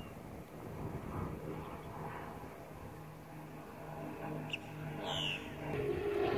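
A low mechanical hum that comes and goes, growing louder with a steadier, higher tone near the end, and a short bird chirp about five seconds in.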